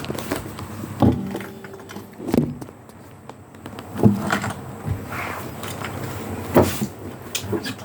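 A few irregular knocks and bumps, four louder ones spaced a second or more apart, like handling noise.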